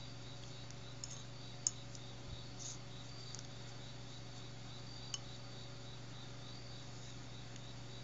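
A few light clicks and taps of a wooden stick against a ceramic bowl of wet paint, the sharpest about a second and a half in, another near five seconds. Underneath, a steady low hum and faint, evenly pulsing insect chirping.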